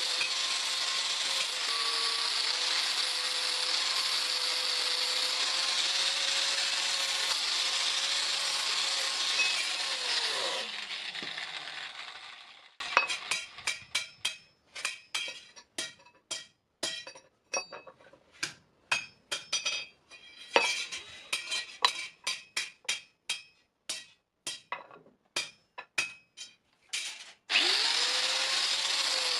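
A power tool's electric motor runs steadily with a hiss, then winds down with a falling pitch about ten seconds in. Next comes a run of sharp, irregular knocks, one or two a second, like a hammer striking the workpiece. Near the end the motor starts again and runs back up to speed.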